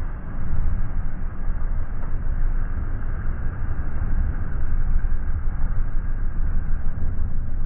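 Sport-fishing boat's engines and churning wake: a steady, heavy low rumble with a rush of water.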